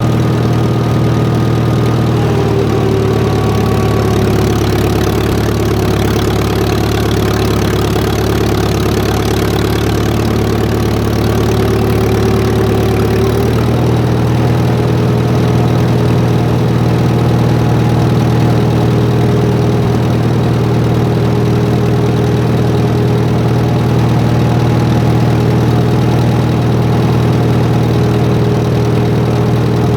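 Massey-Harris 25 tractor's four-cylinder engine running steadily, belted to a sawmill. Its tone shifts about halfway through, with higher steady whines coming and going above the engine.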